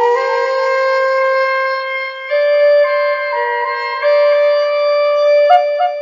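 Homemade Native American flute playing a slow melody in long held notes that step up and down. Near the end it breaks into a quick run of short repeated notes, about four a second.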